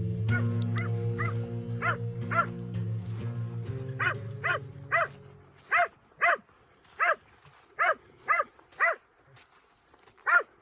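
A dog barking over and over in short, sharp barks, about two a second, over held chords of background music that stop a little past halfway; after that the barks are heard alone.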